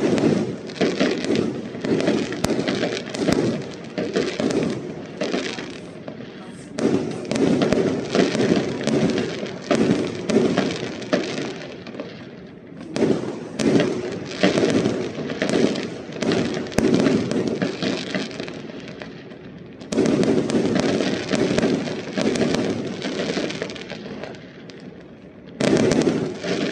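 Fireworks display: rapid volleys of aerial shell bursts and crackling. They come in waves, each starting with a sudden loud barrage, about every six or seven seconds.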